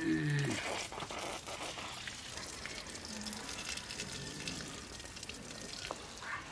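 A hand tool digging and scraping in dry soil, a dense run of small crackles and scrapes among rustling plants. A brief vocal sound comes right at the start.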